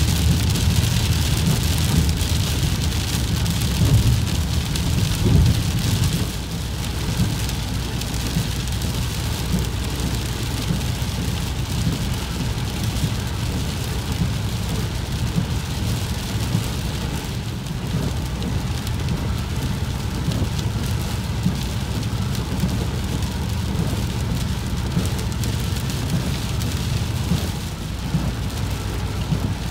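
Heavy, windswept rain falling steadily, with a low rumble underneath that swells louder a few times in the first six seconds and then settles.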